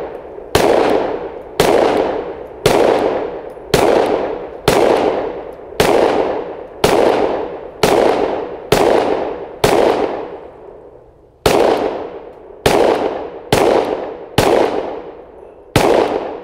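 Sig Sauer M17 9mm pistol firing slow, deliberate single shots, about one a second, with a brief pause after the tenth: fifteen shots in all. Each shot is followed by a fading echo.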